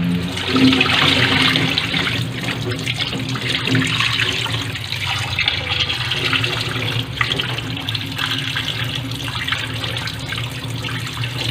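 Chicken pieces sizzling in hot oil in a metal pan on a gas burner, a steady crackling that starts about half a second in.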